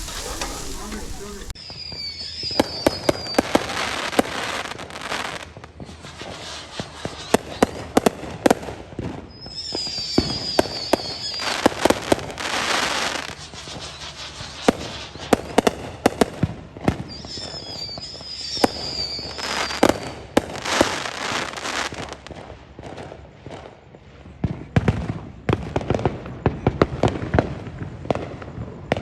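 Backyard consumer fireworks going off: a dense run of sharp cracks and pops with stretches of crackling hiss. Three times a high wavering whistle rises over the crackle.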